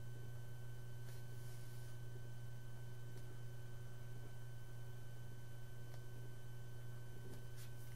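A steady low hum with faint high steady tones above it, and a few faint clicks near the end.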